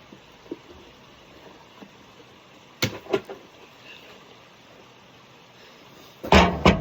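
Two sharp clicks, then two heavy thuds close together near the end as the lawn mower's battery is lifted out and set down.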